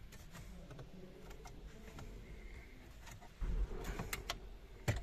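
Scattered plastic clicks and knocks as a large head-unit panel with its trim frame is handled and offered up to a stripped car dashboard, with a dull bump about three and a half seconds in and a sharp click near the end.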